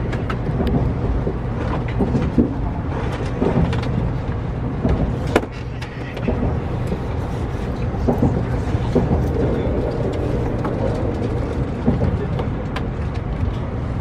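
Steady low rumble of a 700 series Shinkansen train running, heard inside the passenger car, with scattered light clicks and knocks.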